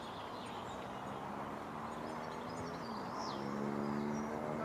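A distant vehicle engine humming, its pitch dipping about three seconds in and then rising again, over a steady outdoor background hiss with a few faint bird chirps.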